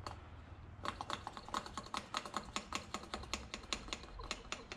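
SeaSucker vacuum mount's plunger pump being worked by hand, a rapid run of small clicks, several a second, starting about a second in. The pumping draws the suction cup down onto the roof glass, and is done until the orange warning band on the plunger disappears, which shows full vacuum.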